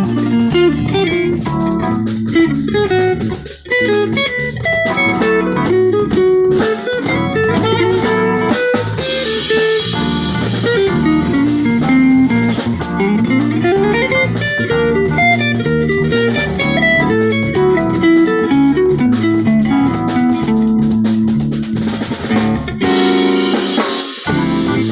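Live band playing, with guitar over a drum kit; one note slides upward about halfway through.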